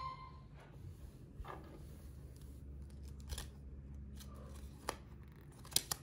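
A plush toy's cardboard hang tag being handled and turned over in the hands: scattered light papery rustles and small clicks, with two sharper clicks near the end.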